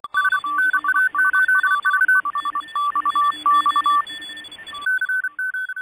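Intro sound effect of fast electronic beeps, keyed on and off in a Morse-code-like rhythm and jumping between two pitches, over a steady hiss like radio static. The hiss stops suddenly about five seconds in, leaving a few beeps at the higher pitch.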